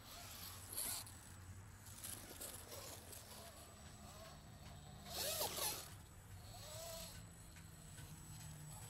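RC4WD Bully 2 rock crawler's dual brushed motors and drivetrain whirring in short bursts as its tyres scrabble on rock. There is a rasping burst about a second in and a louder one about five seconds in, over a low steady hum.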